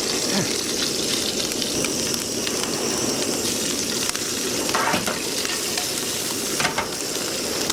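A squid leg sizzling as it fries in hot oil, a steady hiss, with a couple of brief clicks about five seconds in and near seven seconds in.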